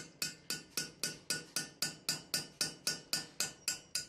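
Steady light hammer taps on a steel punch, about four a second, each with a short metallic ring. The taps drive a heated, seized broken spark plug out of its hole in an aluminium cylinder head.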